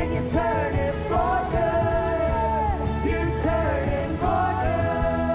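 Live worship band playing a song with singing, backed by drums, electric and acoustic guitars and bass guitar.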